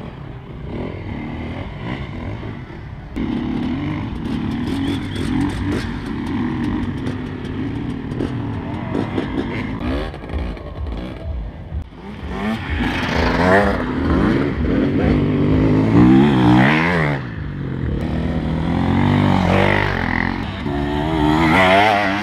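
Dirt bike engines running, then revving up and down with rising and falling pitch from about halfway through as bikes accelerate and pass close by.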